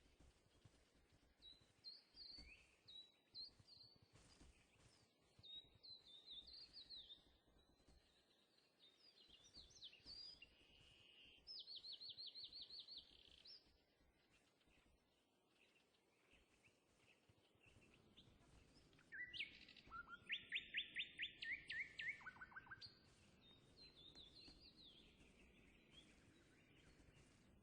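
Birds chirping and singing over quiet surroundings: scattered high chirps, a fast trill of repeated notes partway through, and a louder, longer trill that falls in pitch later on.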